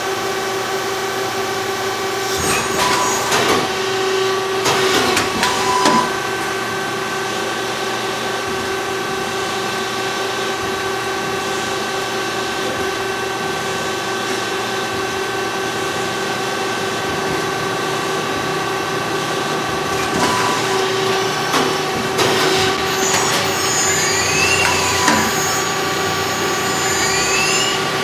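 CNC machine tool running with a steady mechanical hum and spells of rattling cutting noise. Near the end, whines rise and fall in pitch as the spindle speeds up and slows down.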